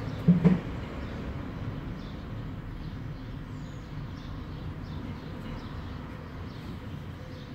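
A sharp double knock about half a second in, then a steady low background hum with faint high chirps.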